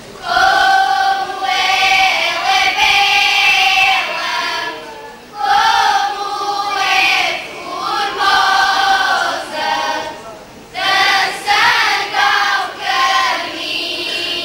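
Children's choir singing cante alentejano, voices only, in held sung lines with short breaks between phrases about five and ten and a half seconds in.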